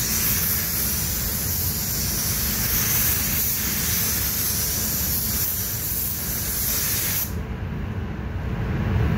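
Air spray gun hissing steadily as it lays a coat of white ground-coat paint onto a car body. The trigger is released about seven seconds in and the hiss cuts off suddenly, leaving a steady low rumble.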